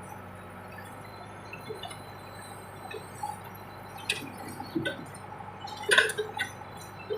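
Case 580 backhoe working: a steady low engine hum with scattered metallic clinks and knocks, the loudest about six seconds in.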